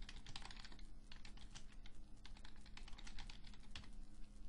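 Computer keyboard typing: a quick, uneven run of keystrokes as a short sentence is typed, over a faint steady hum.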